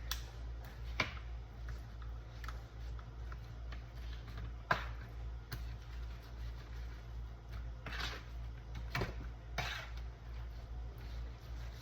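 Scattered light clicks and taps of kitchen handling, such as utensils and containers being set down, with the loudest about five seconds in, over a steady low hum.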